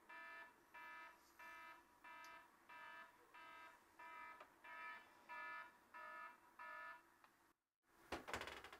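Electronic alarm clock beeping in a steady run of short buzzy beeps, about one and a half a second, which stops suddenly near the end. A short burst of rustling, scraping noise follows.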